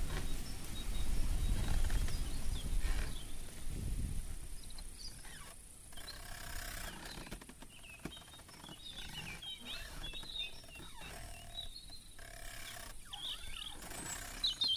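Outdoor sound: a low rumble for the first few seconds, then scattered short, high chirps.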